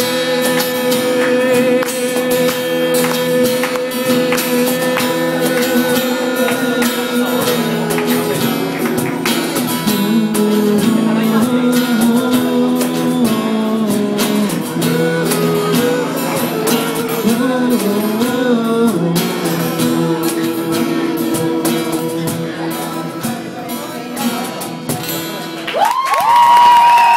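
Acoustic guitar strummed live with a wordless vocal line sung into a microphone: long held notes at first, then a moving melody. Near the end the music gives way to the first cheers from the audience.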